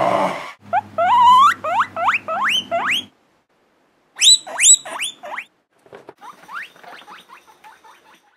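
Guinea pig wheeking: runs of short, rising, whistling squeals, about three a second, in three bursts with brief pauses between them. The last burst is fainter.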